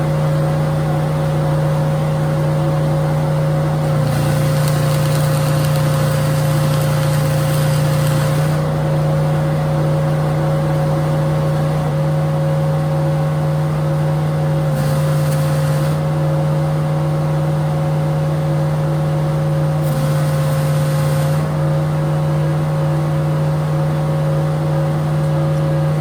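Custom slab planer running steadily, with three short bursts of broad hissing noise laid over its hum. The hum itself stays at one even pitch throughout.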